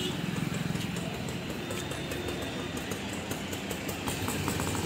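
Engine noise at a bus stand: a steady low engine rumble, loudest at the start as a motorcycle passes close.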